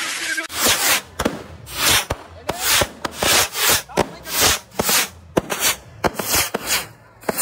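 A handheld firework tube firing shot after shot into the air, each shot a short whooshing burst, about two a second, with a few sharp cracks among them.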